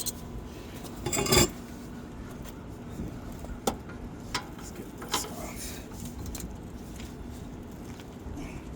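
Metal hand tools clinking and rattling as they are handled, a scatter of sharp clinks with the loudest rattle about a second in.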